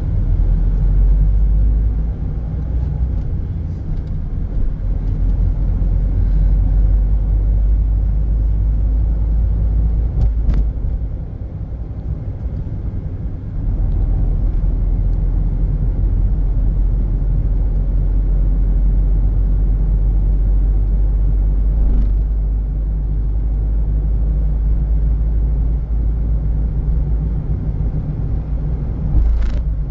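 Steady low rumble of a moving vehicle, easing for a couple of seconds about halfway through, with a few brief knocks.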